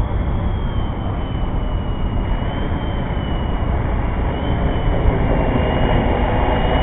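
Radio-controlled 3D helicopter in flight: a steady high whine from its motor and rotors over a heavy, continuous low rumble.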